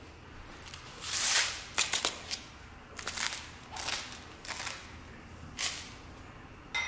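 Salt sprinkled in pinches onto flour in a glass bowl: a run of short, grainy hisses over several seconds, the loudest about a second in. A short click comes near the end.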